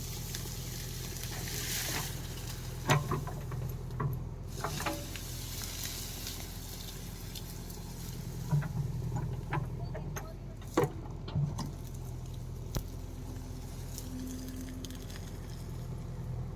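Engine of a tractor or JCB running steadily at a low hum, with scattered sharp knocks and clattering now and then.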